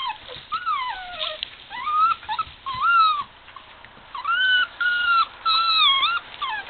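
Bernese Mountain Dog puppies whining and squealing while play-wrestling: a string of about ten short high-pitched whines, some rising and some falling, with brief gaps between.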